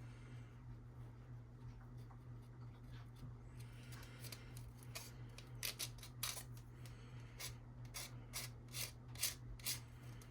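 Short, sharp scraping strokes of a hobby tool on plastic model-kit parts, about two a second, beginning about four seconds in, over a low steady hum.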